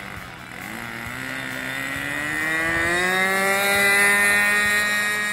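RC model airplane engine throttling up for the takeoff roll, its pitch rising steadily for about three seconds as it grows louder, then holding steady and fading slightly near the end.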